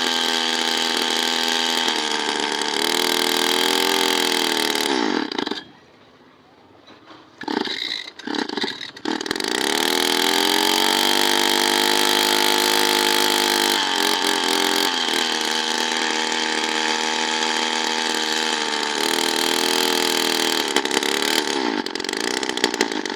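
Small two-stroke engine running fast. About five seconds in it dies away, then sputters back to life a couple of seconds later and runs on steadily, its speed rising and falling slightly.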